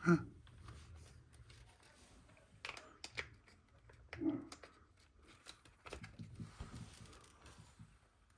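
Quiet, scattered clicks, small knocks and rustling of hands handling small RC truck parts and tools at a workbench.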